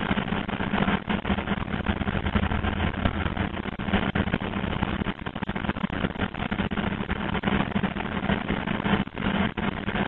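A fibre optic cable blowing machine running with its air supply: a steady low hum under a constant noisy rush.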